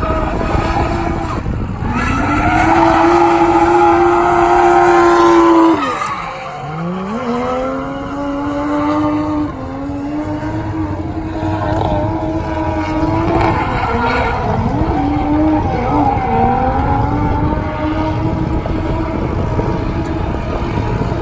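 Drift car's engine held at high revs through a drift, over the hiss of tyres spinning and sliding on the asphalt. About six seconds in, the revs drop sharply and climb straight back up, and they waver again near the middle.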